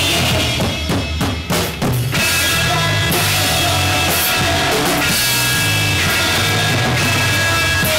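Live post-punk band playing loud, amplified music with drum kit, bass guitar and electric guitar. About half a second in, the band drops back to a run of separate drum hits, then the full band crashes back in about two seconds in.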